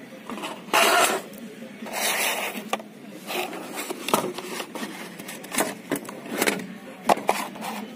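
Handling noise from an LED flood light and its cardboard box being picked up, moved and set down on a board: irregular scrapes and rustles with a few short knocks. The loudest scrape comes about a second in.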